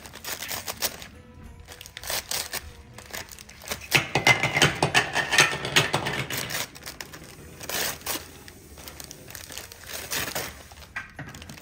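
Gift wrapping paper and a clear plastic bag crinkling and rustling as a present is unwrapped by hand, loudest around the middle, over background music.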